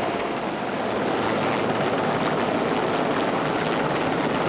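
Hovering helicopter running steadily: a continuous rushing noise of engine, rotor and downwash.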